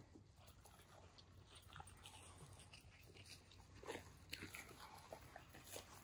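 Faint footsteps crunching and rustling through dry grass and brush, with short irregular crackles that pick up a little about four seconds in.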